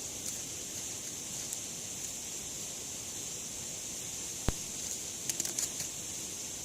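Wood campfire crackling: one sharp pop about four and a half seconds in, followed shortly by a quick cluster of small crackles, over a steady high hiss.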